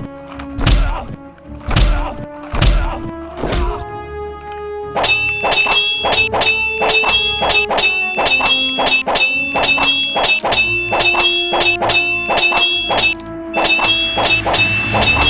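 Background music: heavy low thuds about a second apart over held tones, then from about five seconds in a fast, busy beat with a bright repeated melody.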